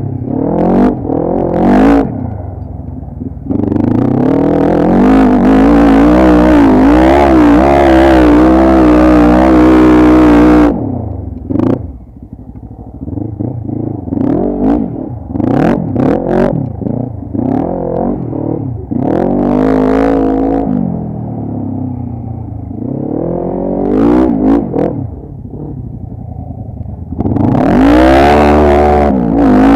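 ATV engine revving hard again and again, the pitch climbing and falling with each throttle blip. The longest and loudest spell of revving comes a few seconds in and lasts about seven seconds. Shorter bursts follow, and another loud spell comes near the end.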